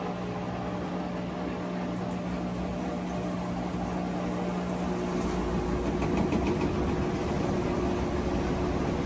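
Roper RTW4516FW2 top-load washing machine running in its spin cycle: a steady motor hum. About five seconds in the hum changes, with a higher tone and more whirring noise coming in and the sound getting a little louder.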